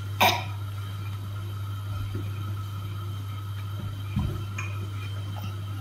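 A steady low hum, with one short sharp sound that slides down in pitch just after the start and a few faint knocks later on.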